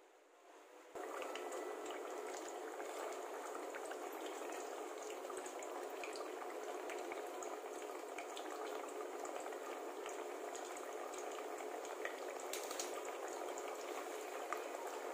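Thin potato slices deep-frying in hot oil in a steel pot: a steady sizzle with scattered small crackles, starting abruptly about a second in.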